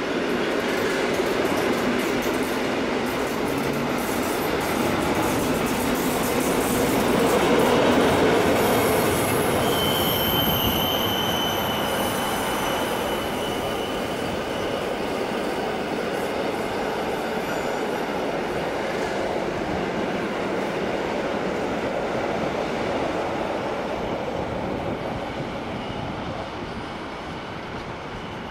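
Rhaetian Railway Ge 4/4 II electric locomotive hauling a freight train of tank and covered wagons past: steady rumble and clatter of wheels on the rails, loudest as the train goes by, with a high wheel squeal about ten seconds in lasting a few seconds. The sound fades near the end as the train pulls away.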